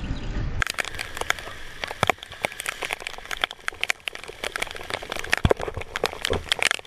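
Heavy rain on a bicycle-mounted camera: a dense, irregular crackle of drops striking it while riding on a wet road. Before it, a low rumble that cuts off sharply about half a second in.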